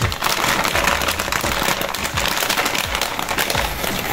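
Sealed plastic Chiki Puff snack bag crinkling and crackling as hands squeeze, press and rub it: a dense, continuous run of small crackles.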